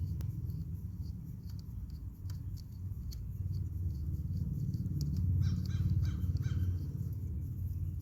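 A crow cawing, a short series of caws a little past halfway through, over a steady low rumble and scattered small clicks from handling parts.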